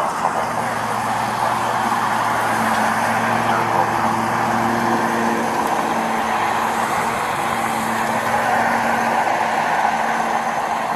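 Steady road traffic noise from vehicles passing on a busy multi-lane road, with a low engine hum underneath.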